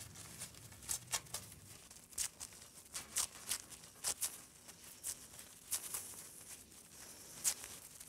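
A sheet of paper being crumpled and torn by hand: an irregular run of short, sharp crinkles and rips.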